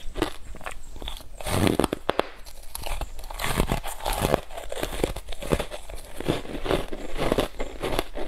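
Ice blocks coated in matcha powder being bitten and chewed close to a clip-on microphone: a dense run of crisp crunches and crackles, with a heavier bite about a second and a half in.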